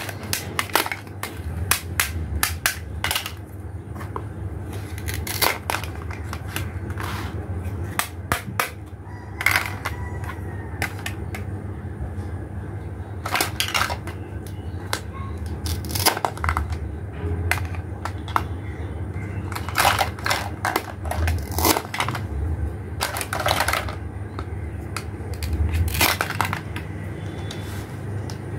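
Hollow plastic toy fruit and vegetable pieces clattering and knocking against each other, the plastic basket and the table as they are handled and set down: irregular sharp clicks and taps, some in quick clusters, over a steady low hum.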